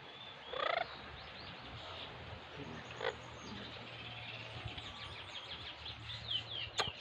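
Blue-fronted Amazon parrot calling: one short, loud squawk about half a second in, then a run of quick, high chirps near the end while its head is scratched, with a sharp click just before the end.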